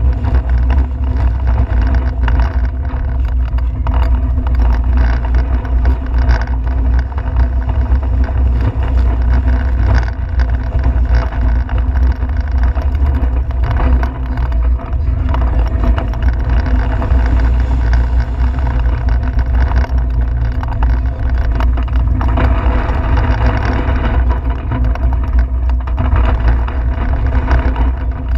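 Steel roller coaster train running along its track at speed: a loud, steady rumble of wheels on rail, with wind on the on-ride camera's microphone.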